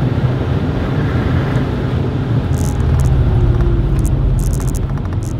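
Supercharged straight-six of a Lexus IS200 TTE Kompressor pulling under throttle, heard from inside the cabin: the engine note rises and grows louder to a peak about three and a half seconds in, then eases off a little near the end.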